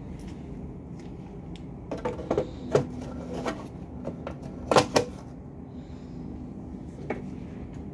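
Handling clatter: a handful of sharp clicks and knocks as circuit boards and the plastic drive housing are moved about on a workbench, the two loudest close together about five seconds in, over a steady background hum.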